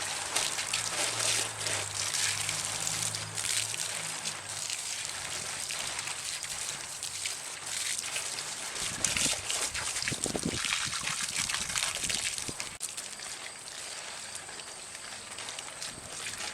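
Garden hose spraying water onto a person and splashing off, rinsing away slime. A low steady hum runs under it for the first half, and a few dull knocks come about ten seconds in.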